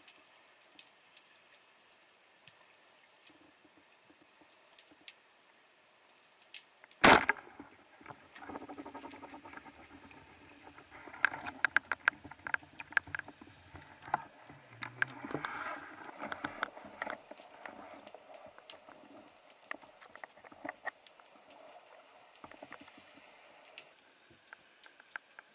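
Underwater sound: scattered sharp clicks, then one loud sharp crack about seven seconds in, typical of a speargun firing, followed by some ten seconds of rattling and clicking.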